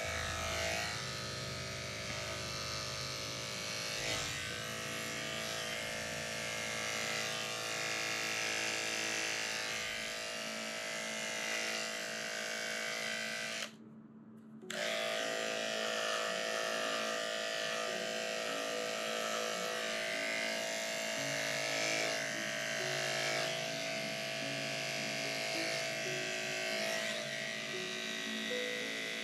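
Electric dog grooming clippers running with a steady hum as a coat is shaved close. The sound cuts out for about a second near the middle, then resumes.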